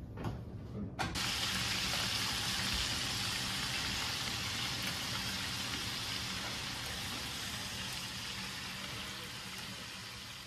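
Kitchen tap turned on about a second in, water running steadily into the sink and slowly getting quieter toward the end.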